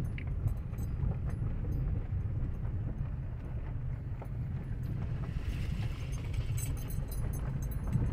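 Car driving on a gravel road, heard from inside the cabin: a steady low rumble of tyres and engine, with small scattered clicks of gravel under the tyres.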